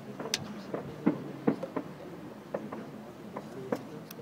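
Distant fireworks going off: a scattered, irregular series of sharp pops and dull thuds, one sharper crack less than half a second in.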